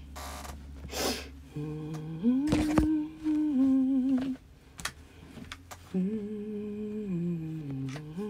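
A woman humming to herself in two short phrases of held notes that step up and down, with brief handling rustles and a click or two around them.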